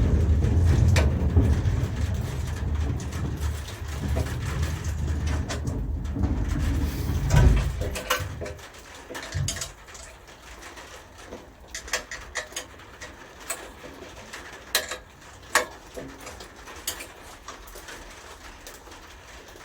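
A low rumble for about the first eight seconds, ending in a louder thump, then scattered sharp metal clicks and taps of bolts, washers and hand tools being handled during assembly of a wood chipper.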